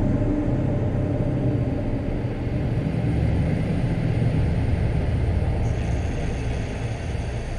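Dark ambient music: a dense, steady low rumbling drone, with faint high tones held above it.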